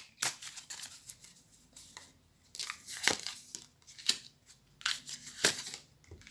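Mibramig tarot cards being drawn from the deck and laid down on a woven table mat: a string of short, soft card slides, flicks and taps.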